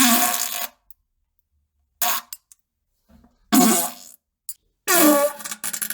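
Four loud farts in a row, separated by silence, each a short low buzz of about half a second. The fourth, about five seconds in, is longer and breaks into a rapid sputtering flutter.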